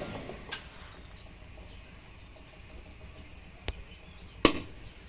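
A few sharp wooden knocks as turned mahogany pieces are handled, the loudest about four and a half seconds in, over faint bird chirps.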